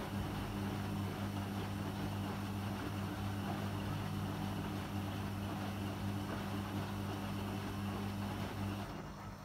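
Beko BKY 2317 B front-loading washing machine running its 30-degree short programme: a steady low hum with a rushing noise over it, which drops off sharply shortly before the end.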